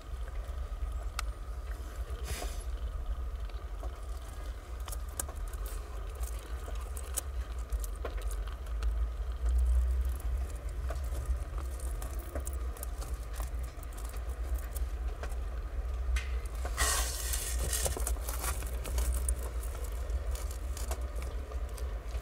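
Tabby mother cat purring in a low, steady rumble while nursing newborn kittens, with small clicks and rustling from the kittens suckling and shifting against her fur. A louder brief rustle comes about 17 seconds in.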